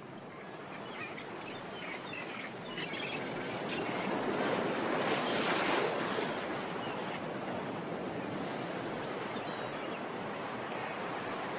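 Large outdoor crowd of spectators, a cheering hubbub that swells to a peak about five seconds in and then holds at a steady murmur, with scattered higher shouts or whistles.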